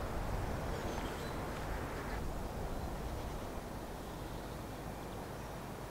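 Quiet outdoor background: a steady low rumble with a few faint, high bird calls about a second in.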